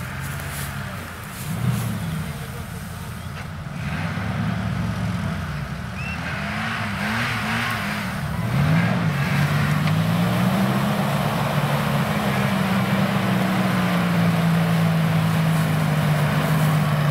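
Off-road vehicle's engine revving: the revs swing up and down a few times, then from about halfway they climb and hold high and steady, louder.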